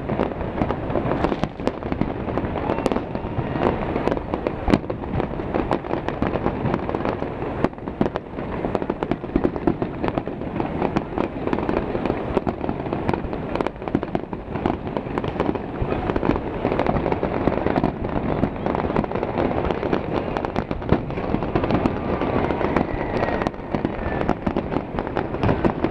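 Fireworks going off in a dense, continuous run: many sharp bangs and crackles overlapping without a pause.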